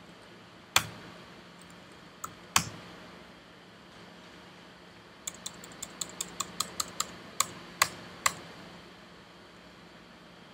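Computer keyboard being typed on: two single keystrokes in the first few seconds, then a quick run of about a dozen keystrokes from about five seconds in.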